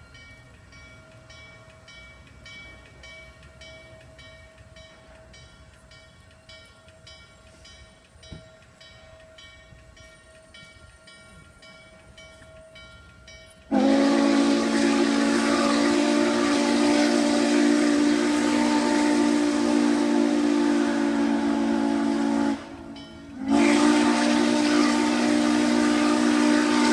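Norfolk & Western steam locomotive's chime whistle blowing: a quiet stretch, then about halfway through a loud, sudden long blast sounding several notes together over steam hiss. The blast stops for about a second, then a second long blast begins.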